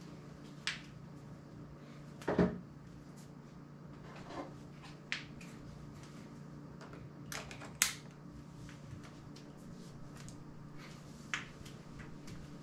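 Scattered short clicks and knocks, about half a dozen, the loudest a few seconds in, over a steady low hum.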